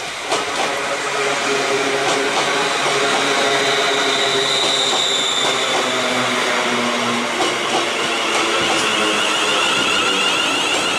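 ScotRail Class 380 electric multiple unit running into the station and past close by, a steady mix of wheel and motor noise with a brief high whine near the middle. A few sharp wheel clicks come over the rails.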